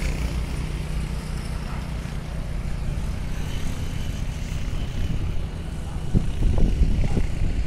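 Heavy lorry's diesel engine running with a steady low rumble.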